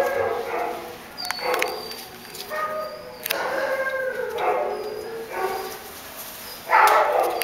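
Dogs barking and howling, a string of drawn-out pitched calls one after another, with a louder one near the end.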